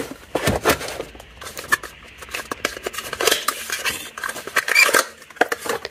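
Hands handling cardboard packaging and opening a small cardboard box: irregular rustling, scraping and light tapping of card.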